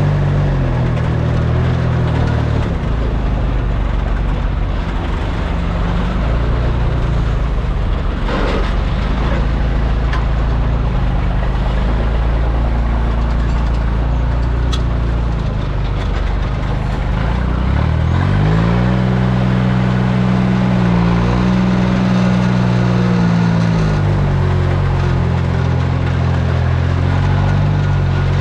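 Delivery truck's engine running as it drives. Its note rises about eighteen seconds in, holds, and falls back again about twenty-four seconds in.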